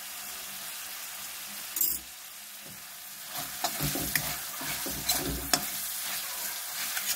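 Spiced onion-tomato masala sizzling in oil in a metal kadhai, with a brief clatter just before two seconds in. From about three seconds in a steel spatula stirs it, scraping and clicking against the pan.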